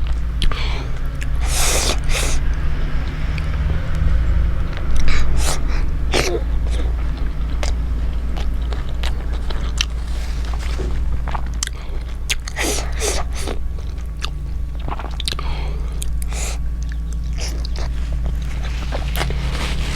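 Close-miked chewing and biting of momo dumplings, with many short, sharp mouth clicks and smacks, over a steady low hum.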